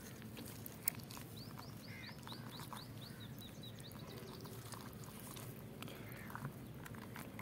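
A small bird calling, a run of quick high chirps at about five a second for a couple of seconds, starting about a second and a half in, over faint low background noise.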